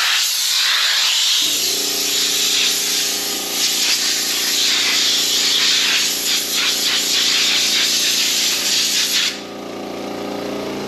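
Compressed air hissing steadily from a blow gun as drilled metal shavings are blown off, cutting off suddenly near the end. About a second and a half in, a machine's steady hum starts and keeps running.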